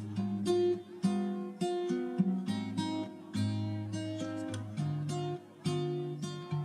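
Background music: plucked and strummed acoustic guitar.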